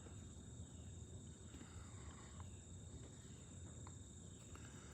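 Near-silent outdoor ambience: a faint, steady, high-pitched insect drone over a low rumble, with a couple of tiny faint clicks.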